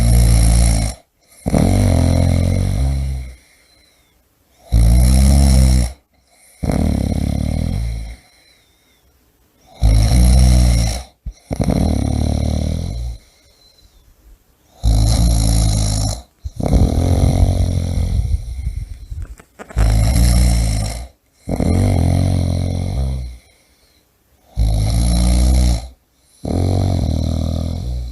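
A person snoring loudly: deep rattling snores, one with each breath, often a shorter snore followed at once by a longer one, the pairs repeating about every five seconds with quiet pauses between.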